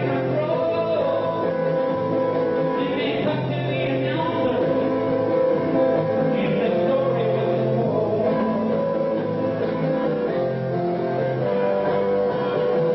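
Live rock band music led by electric guitar, playing steadily.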